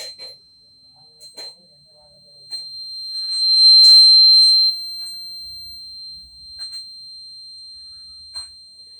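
Homemade fire alarm's buzzer sounding one continuous high-pitched tone, growing much louder about two and a half seconds in, loudest around four seconds, then easing back but still sounding. A few sharp clicks come over it.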